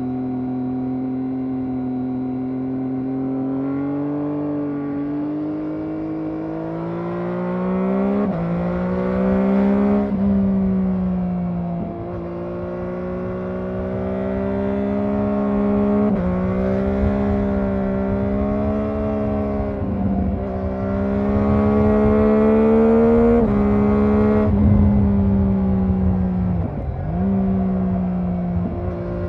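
Triumph Daytona 675R's stock 675 cc inline three-cylinder engine accelerating through the gears, its pitch climbing under throttle and dropping sharply at each gear change or throttle lift, several times, over a steady wind rush.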